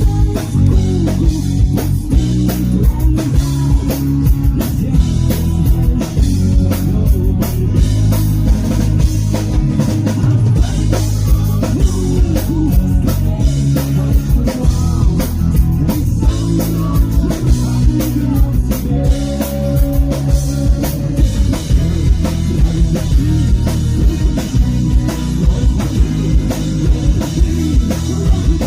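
Live band playing a rock song in an acoustic arrangement, with a drum kit keeping a steady beat under guitar.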